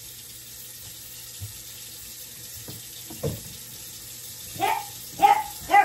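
Kitchen tap running into the sink during dishwashing, a steady rush of water. Near the end a dog barks three times, short and loud.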